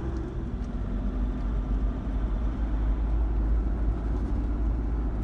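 Truck engine and road noise heard from inside the cab while driving, a steady low rumble.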